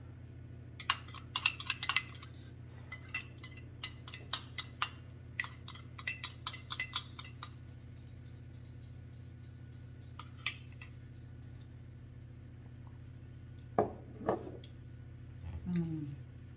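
A metal spoon clinking against a small glass bowl as soup is stirred and scooped: a quick irregular run of clinks for about six seconds, then a single clink a few seconds later. Near the end there is a short low 'mm' from the taster.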